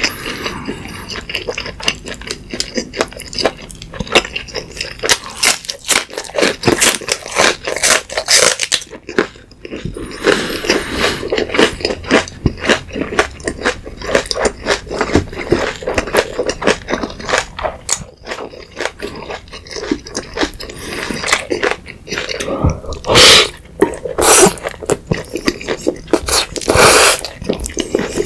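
Close-miked eating of black-bean-sauce instant noodles with beef: steady wet chewing and smacking, with crunchy bites of raw green onion. Several louder mouth sounds near the end.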